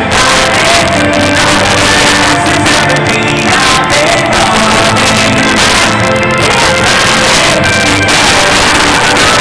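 Live band with electric guitars and drums playing a pop-rock song with a sung lead vocal, heard through an arena PA and recorded loud and distorted.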